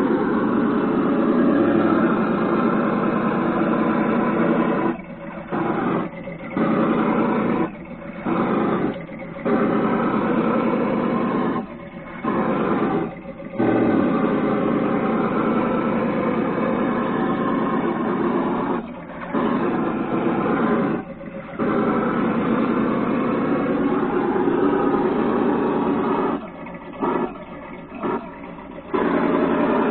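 Electronic engine-sound box on a Traxxas Summit RC truck playing a simulated engine running as the truck crawls. The engine sound drops away briefly several times along the way.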